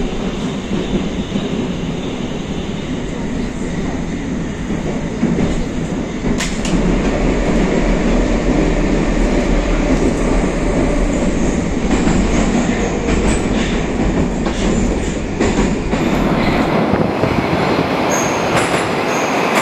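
Moscow Metro train running between stations, heard from inside the car: a steady rumble of wheels and running gear. About four seconds before the end it gives way to an 81-760A metro train pulling into a station, with high thin whistling tones over the rumble.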